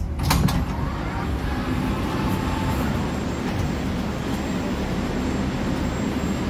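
Steady low hum inside an 81-775/776/777 metro car standing at a platform. A sharp clack with a brief rattle comes about a quarter second in.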